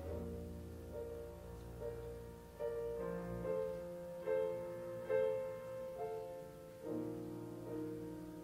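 Piano accompaniment playing an instrumental interlude of held chords, a new chord struck about every second.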